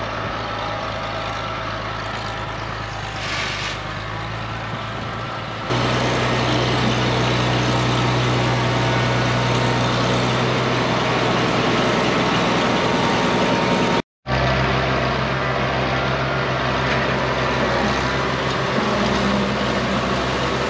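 Tractor engine running steadily, the engine of the International Harvester 656 hydrostat working with its front loader. The engine note steps louder about six seconds in and drops out for a moment around fourteen seconds.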